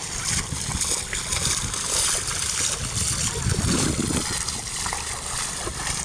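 Beach ambience: wind buffeting the microphone in an uneven rumble, over a steady hiss of shallow sea water splashing and washing.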